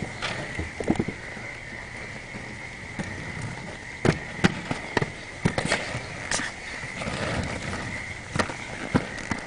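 Inline skates rolling on a concrete sidewalk, with sharp clacks at irregular intervals, most of them in the middle and near the end, over a steady high-pitched hum.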